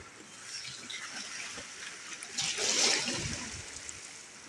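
Sea water washing and trickling against shoreline rocks, with one louder wash about two and a half seconds in that lasts about a second.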